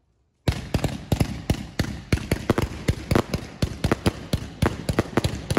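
Fireworks going off in a rapid, irregular string of sharp bangs, about five or six a second, starting suddenly about half a second in.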